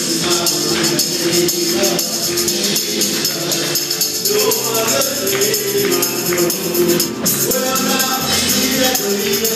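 Live gospel worship music played by a band with keyboard and drums. Voices sing held, sliding notes over a steady high shimmer of percussion.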